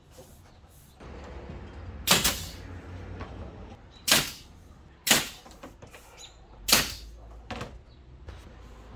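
Pneumatic nailer firing into a plywood cabinet panel: four loud, sharp shots one to two seconds apart, then a fainter fifth near the end, over a low steady hum.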